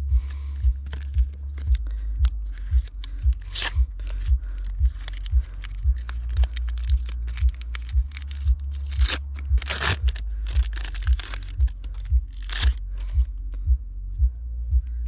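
Music with a steady, heavy bass beat about twice a second, over intermittent clicks, scrapes and rustling from hands working on plastic car trim and clips.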